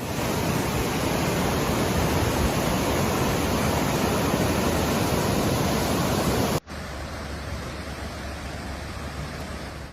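Rushing floodwater as a steady, even noise. About six and a half seconds in it cuts abruptly to a quieter stretch of the same kind of rushing noise.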